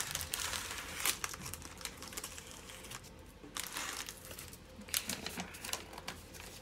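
A clear plastic bag holding diamond-painting drill packets crinkles as it is opened and handled, then a folded paper sheet rustles. The crackles are irregular, with a brief lull about three seconds in.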